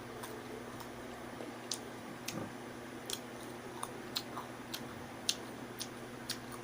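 Someone eating ripe mango: wet mouth smacking with a dozen or so short, sharp clicks at irregular intervals, over a faint steady hum.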